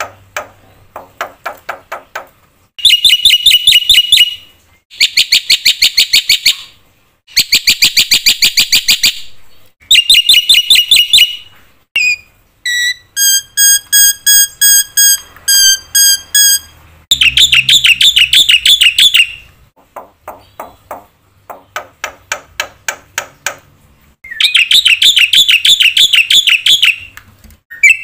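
Black-winged myna (jalak putih) singing a loud, varied song packed with mimicked fill-in phrases. It comes in bursts of fast repeated notes and rattles, each a second or two long with short pauses between, with a run of clear evenly spaced whistled notes in the middle.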